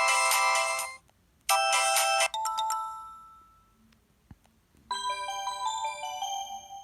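Preloaded ringtones on a ZTE Z222 phone: a busy electronic melody that stops about a second in, a short burst that ends on ringing notes, then after a pause a new tune of bell-like notes that ring on and fade.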